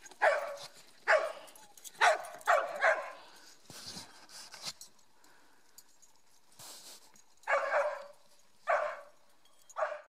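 A dog barking: five sharp barks in quick succession in the first three seconds, a pause, then three more spaced barks near the end.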